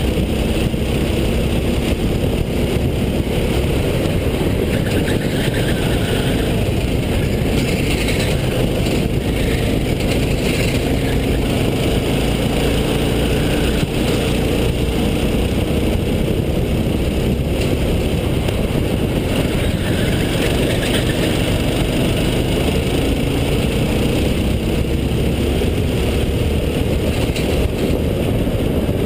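Racing go-kart engine heard from onboard, running hard throughout. Its pitch rises and falls as the kart accelerates out of and slows into the corners.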